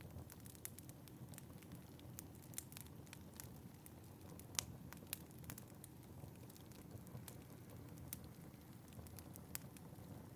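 Wood fire in a fireplace crackling, with irregular sharp pops and snaps, the loudest about four and a half seconds in, over a low steady rumble.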